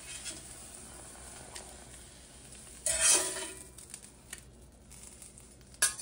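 Fried eggs sizzling faintly in butter in a 1920s Wagner #12 cast iron skillet over low heat. About three seconds in, a steel spatula scrapes across the pan, sliding under the eggs. A sharp clink comes near the end.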